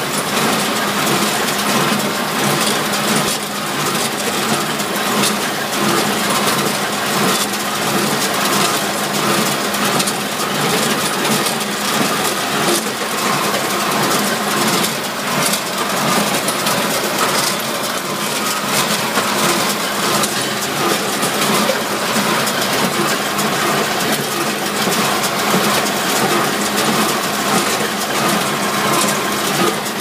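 Tractor engine running under load with a John Deere 459 small square baler working behind it, giving a steady, loud mechanical clatter with repeated knocks as hay is picked up and baled.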